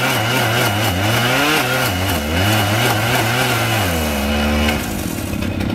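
Engine-driven abrasive rail saw cutting through a steel rail, the cut made to release the rail's stress during destressing. The engine speed wavers up and down under load, with a steady high whine above it, and drops to a lower, steady pitch about four seconds in.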